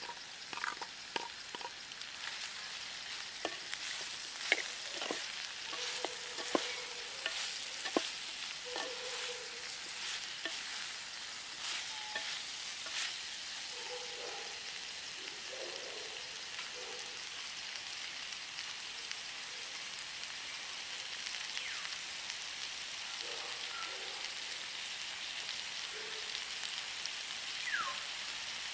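Food sizzling as it fries in a pan, with a spoon stirring and knocking against the pan in scattered clicks, most of them in the first half.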